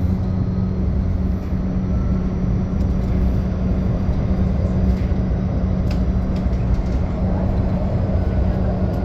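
Modern tram running between stops, heard from inside the car: a steady rumble of wheels on rail with a low, even hum, and a few faint clicks about halfway through.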